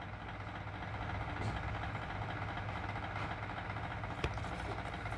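Steady low background hum and hiss of room tone, with one faint tap a little past four seconds in.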